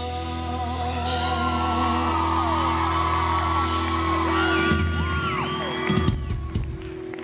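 A live band holds the final chord of a rock song, with fans screaming and whooping over it. The held chord stops about five seconds in, and the shrill screams go on.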